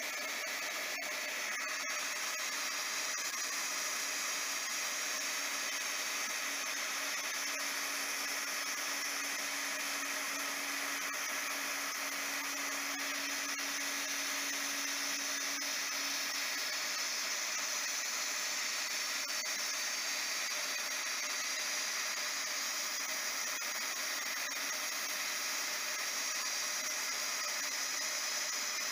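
Cheap hot-air plastic welder running steadily, its blower pushing a constant rush of hot air as the nozzle heats the plastic hull of a sea kayak.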